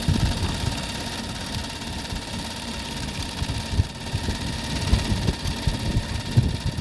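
Super 8 film camera running, its motor giving a steady thin whir over hiss, with irregular low wind rumble buffeting the microphone.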